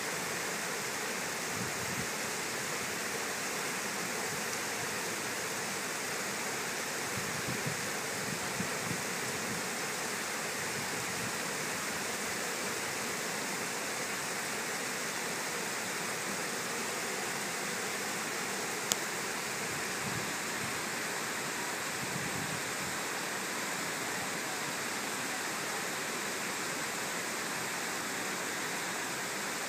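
River water pouring over a low dam spillway, a steady rushing. A single brief click about two-thirds of the way through.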